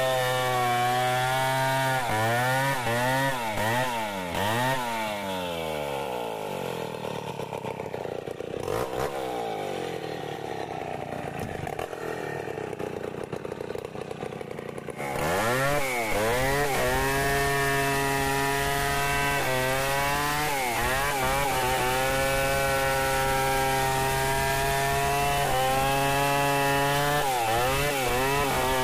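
Stihl 070 two-stroke chainsaw ripping lengthwise along a kubi log in freehand milling. The engine runs at high revs, its pitch swinging up and down as the cut loads it. About six seconds in it falls to lower revs for several seconds, then comes back up to full throttle about fifteen seconds in and cuts steadily, with brief dips in pitch.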